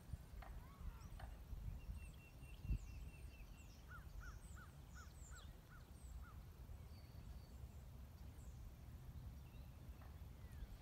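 Faint songbirds singing and chirping, with a run of about seven repeated slurred whistles in the middle, over a low steady rumble. A single thump about a third of the way in.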